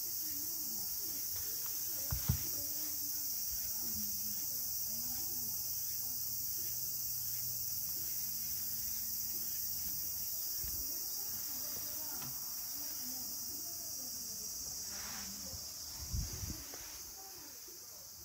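Steady high-pitched chorus of insects. Two short knocks sound through it, about two seconds in and again near the end.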